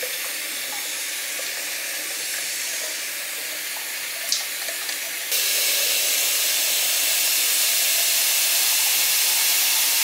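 Kitchen faucet running steadily into the sink. The rush of water turns louder and hissier about five seconds in, with a small clink just before.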